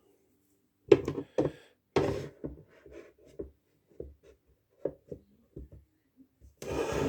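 Work sounds from hands handling build parts: two sharp knocks about a second in, a scrape, scattered light taps, and a longer rasping scrape near the end.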